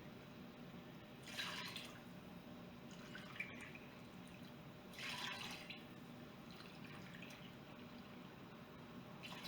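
Water poured into an electric pressure cooker's pot, heard as two short, faint splashes, about a second in and again about five seconds in.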